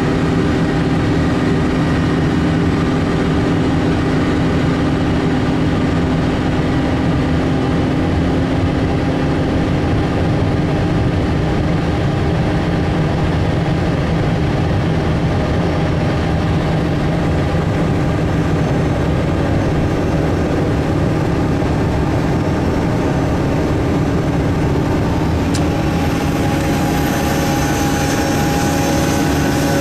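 Engine running steadily with a constant low hum, heard from inside the vehicle's cab as it moves. A faint high whine joins near the end.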